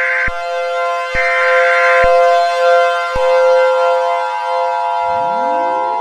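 Mock Emergency Alert System alert audio over a civil defense siren. Steady layered siren tones are cut by short bright tone bursts with clicks, a steady two-tone alert tone joins about three seconds in, and a siren starts winding up, rising in pitch, near the end.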